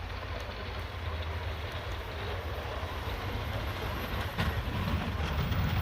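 Heavy truck's engine running with a steady rumbling noise as it fails to climb a snowy hill, its tyres losing grip.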